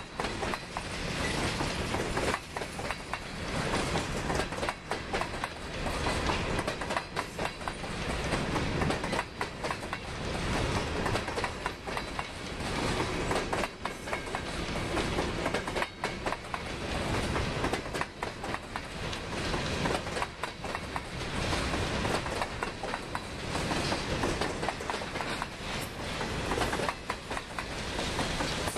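Covered hopper cars of a freight grain train rolling past: a steady rumble of steel wheels on rail, broken by repeated clicks and knocks as the wheels cross the rail joints.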